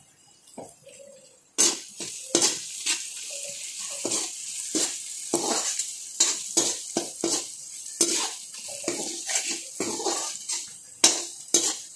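A perforated steel spatula scrapes and clicks against a steel kadai as onions and garlic are stirred in hot oil, over a steady sizzle. The stirring starts about a second and a half in and goes on in quick, irregular strokes.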